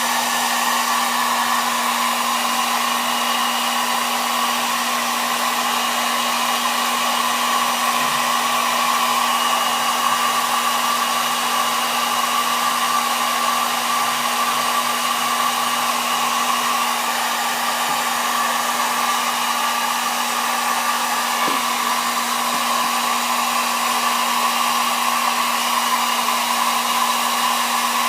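Hot-air blower running steadily, a constant rush of air over a steady hum.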